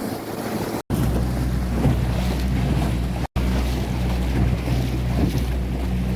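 Motorboat under way: a steady engine hum with water rush and wind buffeting the microphone. The sound cuts out for an instant twice.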